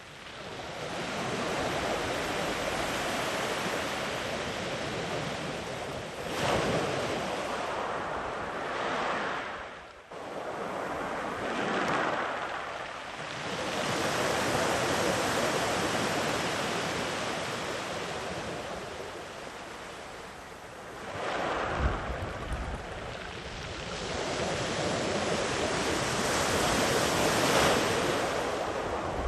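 Sea waves breaking and washing in along a beach, the surf swelling and ebbing every few seconds. A brief low rumble of wind on the microphone comes in partway through.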